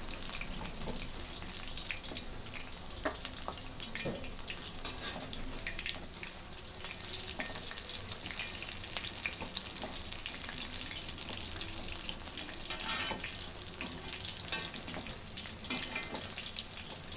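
Battered green chilli bajjis deep-frying in hot oil: a steady sizzle and crackle, with a few sharp clicks as a wire-mesh spider strainer turns them in the pan.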